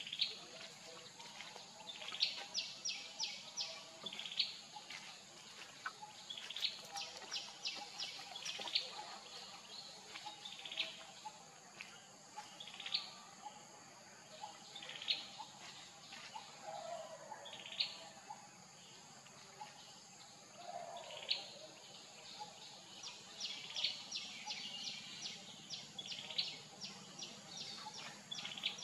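Small forest birds chirping in quick runs of short high notes, repeated again and again, over a steady high-pitched hiss.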